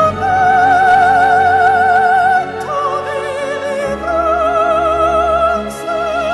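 A male sopranist singing in a high soprano voice with wide vibrato over an instrumental accompaniment. He holds a long note, moves through a few shorter notes, then settles on another long note about four seconds in.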